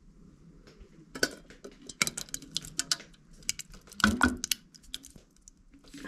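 Chili being tipped and scraped out of a container into a metal pot: a run of short, sharp knocks and clatters as the container taps against the pot, with soft wet plops, heaviest about two and four seconds in.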